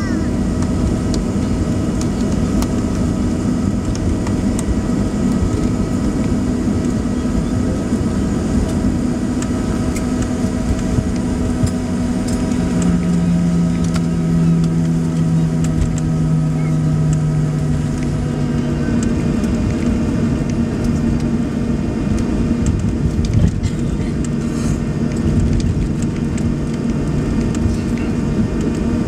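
Cabin noise of a Boeing 737 Next Generation taxiing after landing: its CFM56-7B jet engines running steadily, a dense rumble with several steady hums on top. A deeper tone joins for about five seconds midway.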